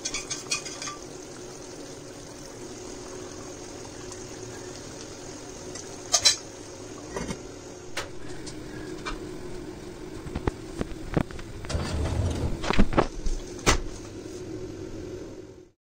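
Lamb stew simmering in a cast-iron casserole pot, a steady hiss under everything. A sharp clink about six seconds in fits the heavy lid going on. A run of clunks and knocks from cookware and the stove follows near the end.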